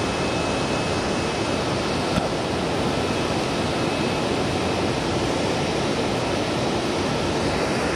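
Steady rush of flowing river water around wading anglers, an even, unbroken noise at a constant level.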